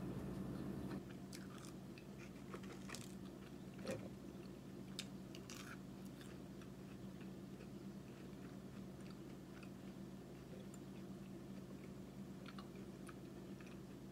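A person chewing and biting French fries, with scattered small mouth clicks, most of them in the first six seconds and a few more near the end. A steady low hum runs underneath.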